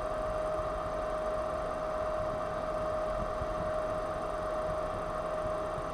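Gas brazing torch burning steadily, an even hiss with a steady high whine, as it heats a copper refrigerant pipe joint.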